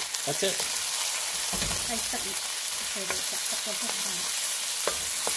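Head-on shrimp sizzling in butter and freshly added oyster sauce in a stainless steel wok, stirred and scraped with a wooden spatula. A couple of sharp knocks come near the end.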